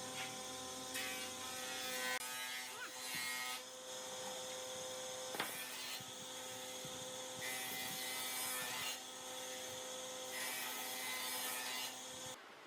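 Electric power tool running with a steady motor whine, in several stretches biting into wood with louder hissing bursts. It cuts off suddenly near the end.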